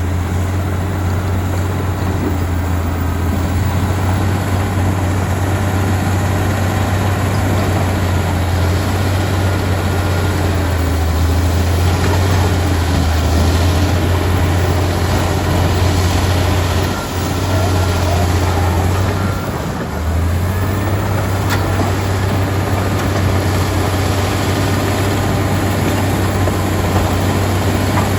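Komatsu D85EX bulldozer's diesel engine running steadily with a deep drone over a broad rumble, easing off briefly about 17 and again about 20 seconds in before picking back up.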